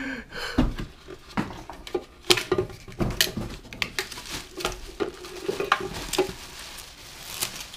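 Clear plastic parts of a new juice extractor being unpacked and handled: irregular clunks and knocks of hard plastic on the counter, with the crinkle of the plastic bags wrapping them.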